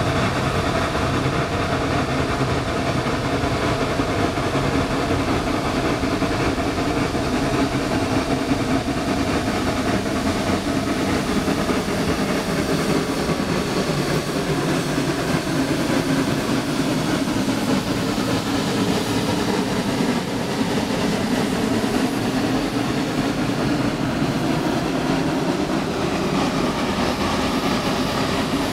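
Geared steam locomotive working a log train past at close range, with a loud, steady mix of exhaust and running-gear noise that holds level throughout.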